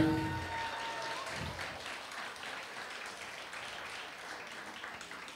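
A room of guests applauding, the clapping slowly dying away.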